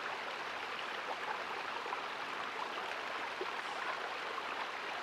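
Shallow creek flowing and babbling steadily, a continuous rush of water flecked with small trickles and drips.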